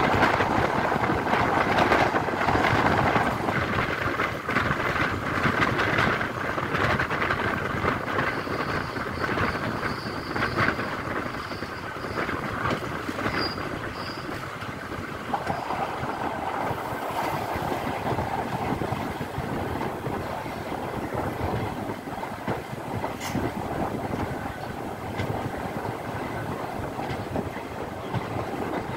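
Passenger train running at speed, heard from a coach window: a steady rumble and rush with the wheels clicking over rail joints.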